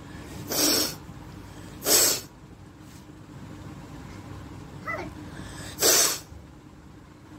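A woman forcing three short, sharp bursts of air out through her nose, spread over several seconds, with a faint brief squeak shortly before the last one.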